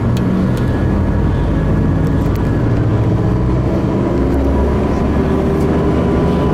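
Steady engine drone and road noise of a moving tour bus, heard from inside the cabin.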